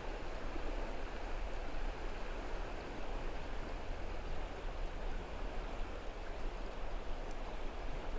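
River water running, a steady rushing.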